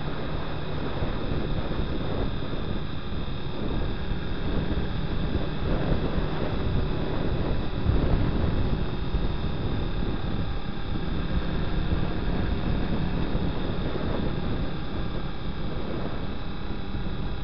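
Honda Twister 250's single-cylinder engine running at a steady cruise, mixed with wind rushing over the camera microphone, a little louder about eight seconds in.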